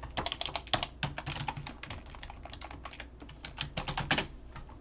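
Typing on a computer keyboard: a run of quick, irregular key clicks with short pauses between bursts.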